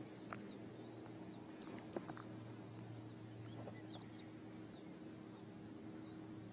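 Faint outdoor ambience: scattered short, high bird chirps over a steady low hum, with a few soft clicks, the loudest about two seconds in.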